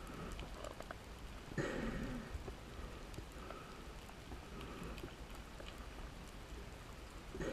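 Scuba diver breathing through a regulator underwater: a burst of exhaled bubbles about a second and a half in and another at the very end. Faint scattered clicks run underneath.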